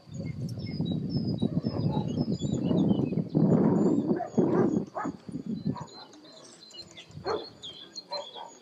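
German shepherd barking, with dense rough noise for about the first six seconds, then a couple of single barks. Birds chirp high and faint throughout.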